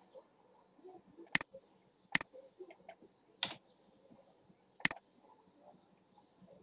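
Computer mouse clicking: four short sharp clicks about a second apart, the third one softer.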